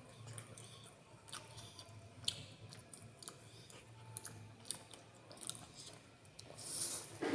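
A person chewing food close to the microphone, with wet mouth sounds and scattered small clicks and crunches, and a louder, noisier mouth sound near the end.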